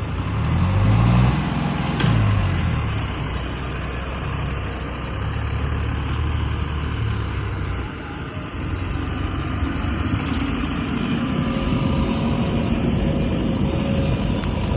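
Heavy diesel engine of farm or construction machinery running, revving up twice in the first couple of seconds and then running steadily.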